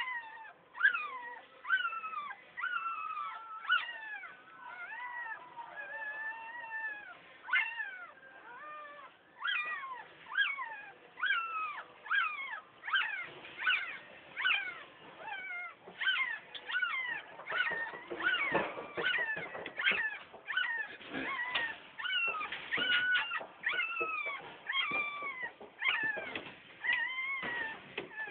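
Newborn, one-day-old pit bull puppies squealing and crying: a continuous run of short, high-pitched calls that fall in pitch, about one or two a second and sometimes overlapping. About two-thirds of the way through, low rustling noise comes in under the cries.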